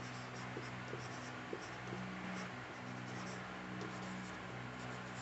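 Marker pen writing on a whiteboard: faint short scratchy strokes, over a steady low hum.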